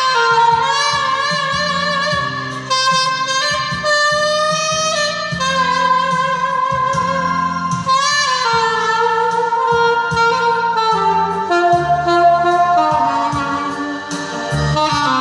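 Saxophone playing a slow melody with vibrato over a backing accompaniment.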